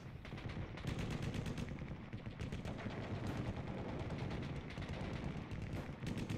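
Wildfire burning: dense, irregular crackling and popping of burning wood over a steady low rumble.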